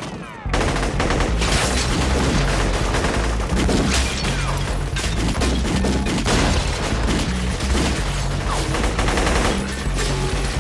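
A sustained barrage of automatic rifle fire from several guns, with bullets smashing into stone pillars and scattering debris. It comes in at full loudness about half a second in, over a music track with a heavy bass line.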